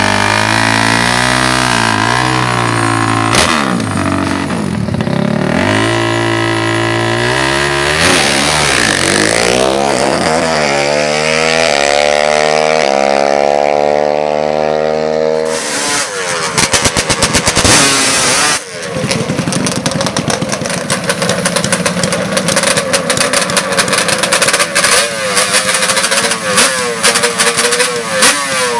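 Drag-racing ATV engines revving. One engine climbs steadily in pitch for several seconds around the middle, then cuts off. After that an engine runs with a fast, rough stutter.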